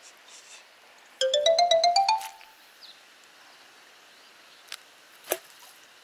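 A short electronic chime: about eight quick notes stepping upward in pitch over roughly a second, a bit over a second in. A single sharp click follows near the end.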